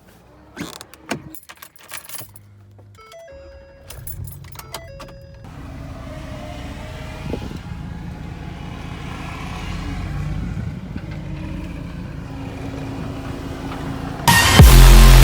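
Keys jangling and door clicks, then a pickup truck's warning chime pinging. About four seconds in the engine starts and runs with a steady low rumble as the truck is moved. Loud electronic music with heavy bass cuts in near the end.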